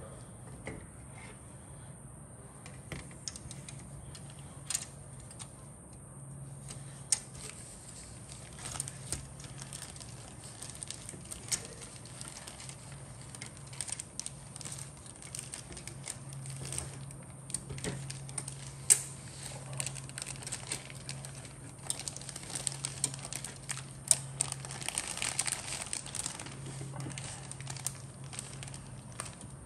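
Plastic model kit packaging crinkling and rustling as the parts are handled, with scattered light clicks and taps, over a faint steady hum.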